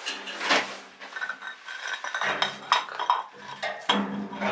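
Clinks and knocks of hard objects being handled, several sharp strikes, from a small metal stove being shifted and propped up on stones.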